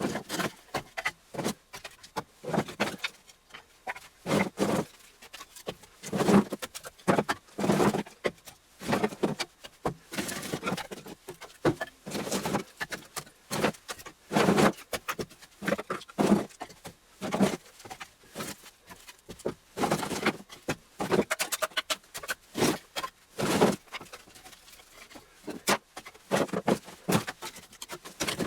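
Short lengths of freshly cut firewood clunking against each other as they are loaded onto a sled, in irregular knocks roughly once or twice a second.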